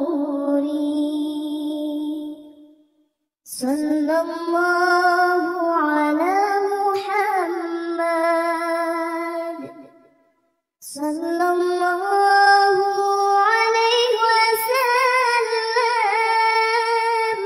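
A high singing voice chanting shalawat, a devotional song in praise of the Prophet Muhammad, in three long drawn-out phrases with held, wavering notes. It breaks off briefly about three seconds and ten seconds in.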